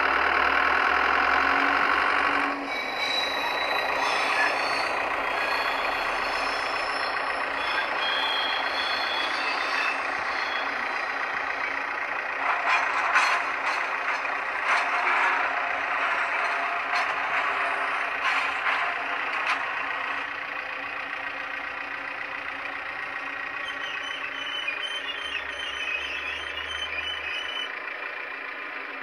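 Diesel engine sound of a Heljan O gauge AEC railcar model, played by its DCC sound decoder through an onboard speaker, running steadily as the model drives away and growing fainter near the end. A loud steady sound at the start cuts off sharply about two and a half seconds in, and a run of clicks comes in the middle.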